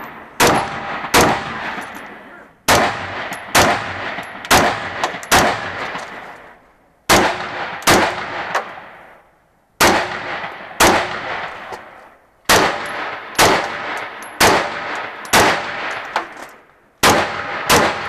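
Semi-automatic AR-style rifle firing a string of about seventeen shots, mostly in quick pairs with short pauses between them, each shot ringing off in echo.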